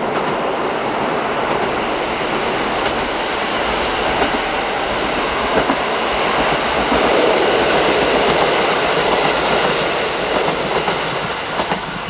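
Two-car KiHa 40 diesel railcar train passing: engine running and wheels clacking over rail joints, growing louder to a peak about two thirds of the way through and fading near the end.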